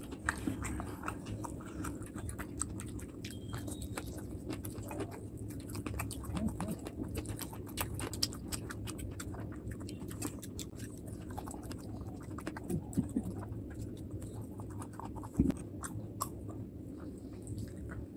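Close-miked chewing of a mouthful of rice and curry: a steady run of wet mouth clicks and smacks, with one louder knock late on.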